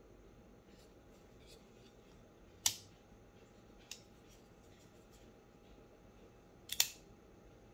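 Kizer Mad Tanto folding knife's blade action clicking: a sharp metallic snap a little under three seconds in as the blade shuts into the handle, a small click about a second later, and a loud double click near the end as the blade is deployed and locks open.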